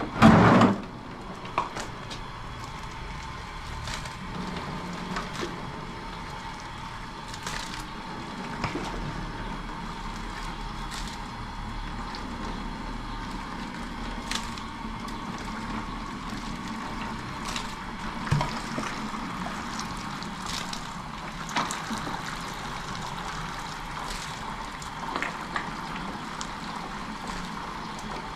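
Parboiled rice and boiling water being ladled out of a large aluminium pot and poured into a plastic colander to drain: splashing and pouring, with a loud splash at the start and scattered clicks of the metal ladle against the pot over a steady hiss.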